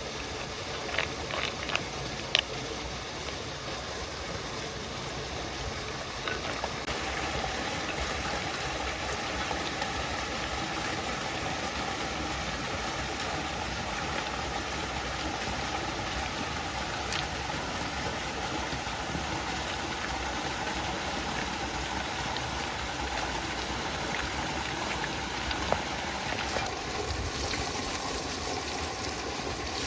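Steady rush of a flowing stream, with a few sharp clicks in the first couple of seconds.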